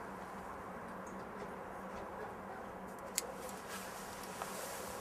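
Quiet steady background hiss with a constant low hum, broken by a faint sharp click about three seconds in and a loud sharp click at the very end.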